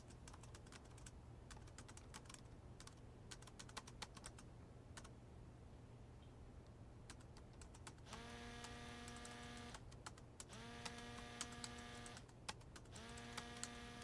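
Light typing on a laptop keyboard, a scatter of key clicks, then a smartphone lying on a table signals an incoming call: three long, steady tones about two and a half seconds apart.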